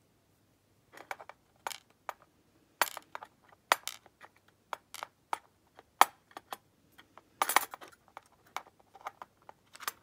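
Small brass pins from an Abus 72/40 padlock core clicking as they drop one by one onto a plastic pin tray, mixed with metal clicks from handling the core. The sharp clicks are irregular and start about a second in.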